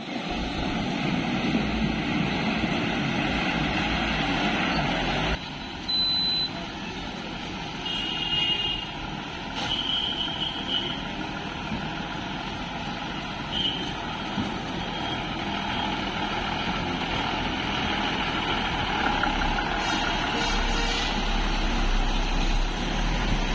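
Heavily loaded lorries' diesel engines running as they crawl through muddy, water-filled potholes. A few short high-pitched beeps sound now and then.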